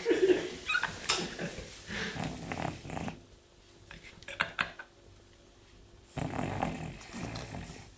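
Dog snoring while asleep: a long snore, a pause of about three seconds, then another snore about six seconds in.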